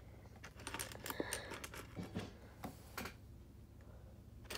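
Small plastic LEGO pieces clicking and rattling as they are handled and pressed onto a plate: a run of light clicks that thins out after about three seconds.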